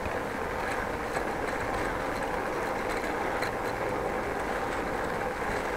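Steady rolling rumble and hiss of a bicycle riding over brick paving, picked up by a handlebar-mounted action camera, with a few faint ticks.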